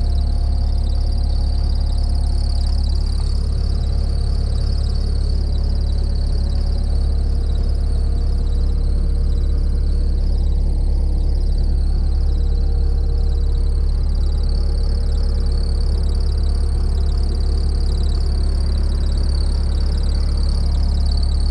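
Doosan D34NAP turbo-diesel engine of a Bobcat T740 tracked skid steer running at a steady speed, with a steady high whine above the engine note.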